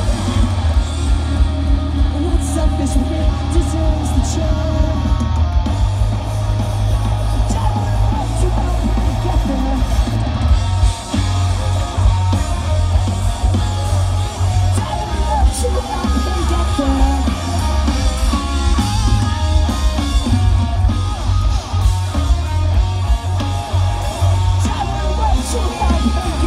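Live post-hardcore rock band playing loud: electric guitars, drum kit and bass with a singer's vocals. Heard through a phone microphone in the crowd, with a heavy, boomy low end.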